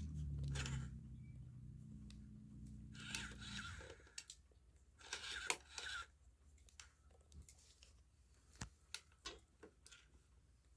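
A toy robot's small motor hums low and steady for about four seconds, then stops. After that come scattered sharp clicks and a couple of short rustling bursts from the plastic mechanism.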